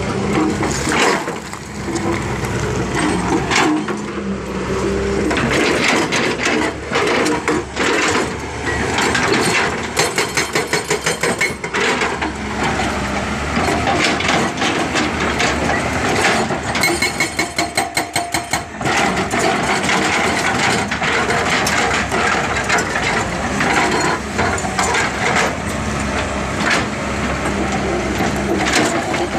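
Excavator-mounted hydraulic rock breaker hammering rock. Two runs of rapid, evenly spaced blows about two seconds long stand out over continuous rough machine and rock clatter.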